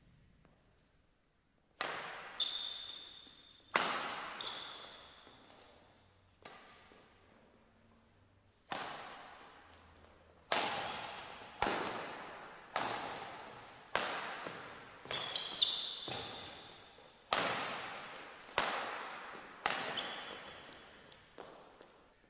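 Badminton rally: a rackets-on-shuttlecock exchange of sharp hits about every second or so, each trailing off in the echo of a large sports hall, with short high shoe squeaks on the court mat between strokes. The hits start about two seconds in.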